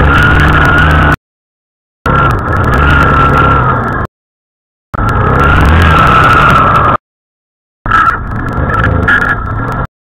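ATV engine running under way, loud and distorted on the camera's microphone with wind noise and a steady high whine. It comes in four short bursts of about two seconds each, cut off sharply by silences.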